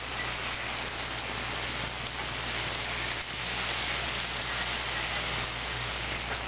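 Model trains running on the track: a steady rattling hiss of many small wheels and motors on the rails, with a low steady hum underneath.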